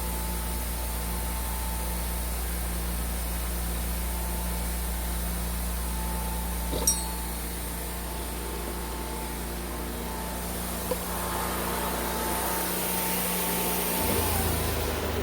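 A machine running steadily with a low hum and a faint steady whine. There is one sharp click about seven seconds in, and the hum shifts near the end.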